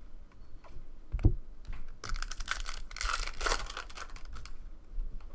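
A thump about a second in, then a foil trading-card pack wrapper being torn open and crinkled for a couple of seconds, with small clicks of cards being handled.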